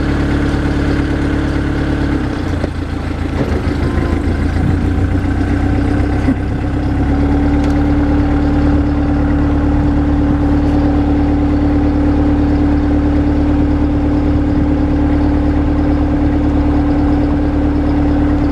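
Narrowboat diesel engine running. Its speed changes about two seconds in, then holds a steady, slightly higher note from about seven seconds on.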